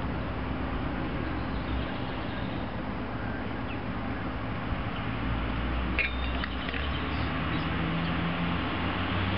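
Steady low rumble and hiss of background noise, with a light click about six seconds in from a screwdriver being set down.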